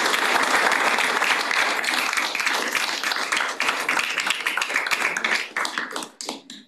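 Applause from a small group of people clapping, many hands at once, thinning into a few scattered claps and stopping near the end.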